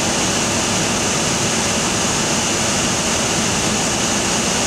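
Pod-and-rail CNC router (1995 Morbidelli Author 504) running, a steady, loud rushing machine noise with a faint high tone.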